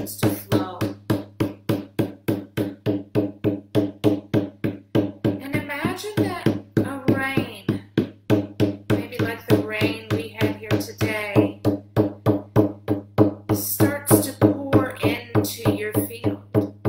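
A hand-held frame drum beaten in a steady pulse of about three strikes a second, each a low, ringing boom. A woman's voice sings along over the beat.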